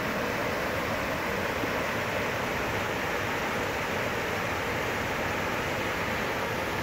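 A small waterfall and rocky stream rushing in a steady, unbroken roar of white water.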